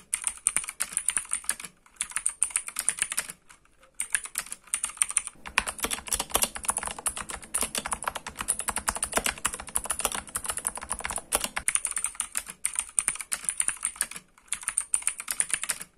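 Fast typing on a mechanical keyboard with clicky Gateron Blue switches, in runs broken by short pauses. It starts on the unlubed switches with a sharp, high click, moves to the same switches lubed, which have more low thock, and goes back to the unlubed switches near the end.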